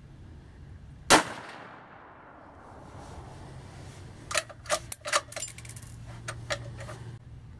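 A single shot from a Savage B-Mag bolt-action rifle in 17 WSM rimfire about a second in, sharp and loud with a short echoing tail. Then, from about four seconds in, a run of sharp metallic clicks and clinks as the bolt is worked and the spent case is ejected.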